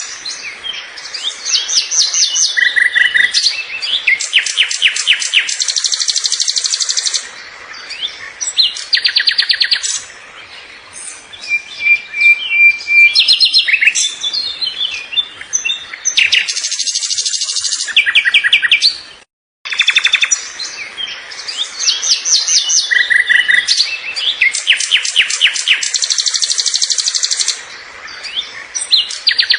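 Bird singing a loud, varied song of rapid trills, chirps and whistled notes. The same passage comes round again after a brief break about 19 seconds in.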